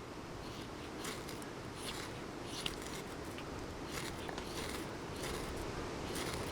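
A run of short, irregular scraping strokes, about one a second, over a steady low rumble of wind on the microphone.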